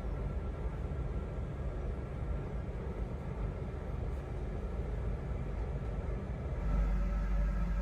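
Passenger train running, heard from on board: a steady low rumble from the wheels and running gear, which grows louder near the end.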